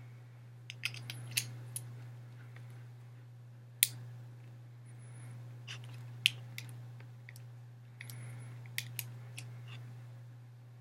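Scattered sharp clicks and snips of hand tools working the end of a Cat 5e cable as it is trimmed and terminated, the two loudest clicks coming about four and six seconds in. A steady low hum runs underneath.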